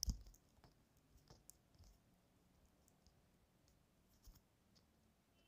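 Near silence with a short click at the start and a few fainter clicks later on.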